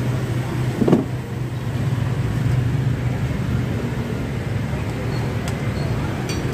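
Steady hum of road traffic, with a short louder sound about a second in and a couple of light clicks near the end.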